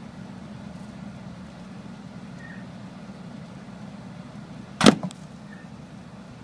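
A steady low electrical hum, with one sharp knock nearly five seconds in and a smaller one right after it.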